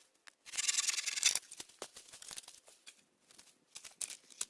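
Brush and twigs crackling and snapping: a dense crackle about half a second in lasting nearly a second, then scattered small snaps.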